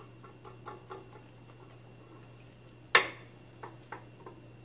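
A utensil clicking and knocking against a mixing bowl as a cream cheese mixture is stirred, with irregular light taps and one sharper knock about three seconds in.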